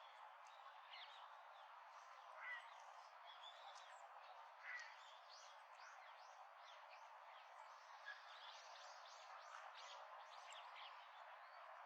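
Faint outdoor birdsong: many short, high chirps from small birds, with two louder chirps about two and a half and nearly five seconds in, over a steady background hiss.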